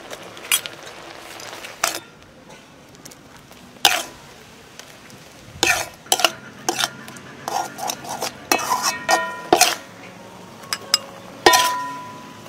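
Metal ladle knocking and scraping against a metal wok as a thick sauce is stirred, in irregular clanks, several of which ring briefly.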